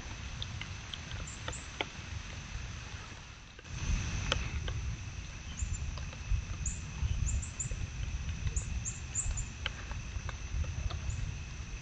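Outdoor trail-camera ambience with white-tailed deer grazing close by: scattered soft clicks over a steady low rumble, two faint steady high tones, and brief high chirps. The rumble steps up suddenly a little over a third of the way in.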